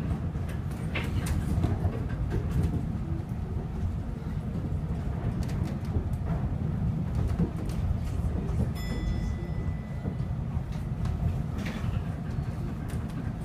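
Inside a Chiba Urban Monorail suspended car running along its overhead beam: a steady low rumble from the rubber-tyred running gear, with scattered clicks and knocks, as it pulls into a station. A short high tone sounds about nine seconds in.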